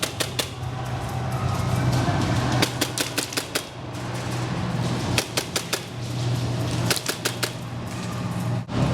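Four short bursts of airsoft gunfire, each a quick string of about four to six sharp cracks, over background music with a steady low hum.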